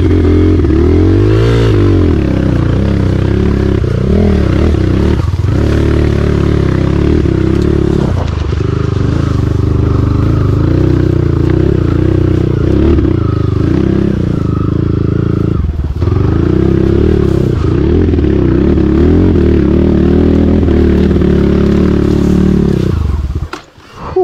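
Kawasaki KLX140G's single-cylinder four-stroke engine running hard, revving up and down again and again, then cutting out near the end.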